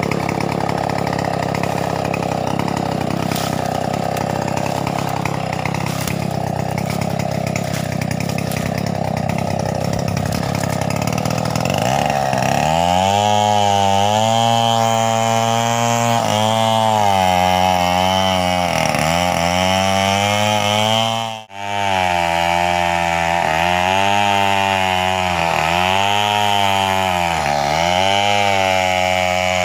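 Two-stroke chainsaw cutting medang wood. At first it holds a steady high rev in the cut; from about twelve seconds in, the engine note dips and recovers every second or two as the chain bogs under load. The sound cuts out for an instant a little past twenty seconds.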